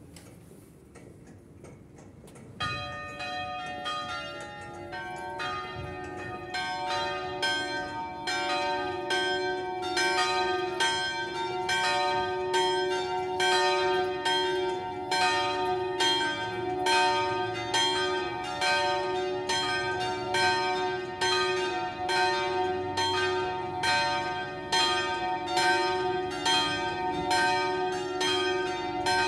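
The three smallest bells (fourth, fifth and sixth) of a six-bell Italian church peal ringing a distesa, swung full circle so that their strokes overlap in a continuous peal. The first strike comes a couple of seconds in and the ringing then builds and keeps going steadily. Rung as the first call for the weekday evening Mass.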